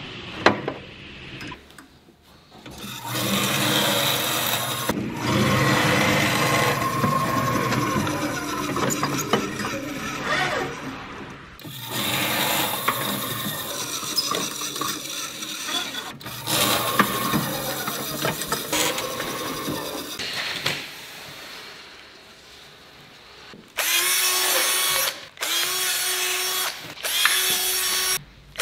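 A bench-mounted horizontal drilling machine running and drilling into the metal frame rail of a pleated window screen, in long stretches with brief breaks. Near the end, a handheld electric drill runs in four short bursts with a steady whine as it drills through the rail and the pleated mesh.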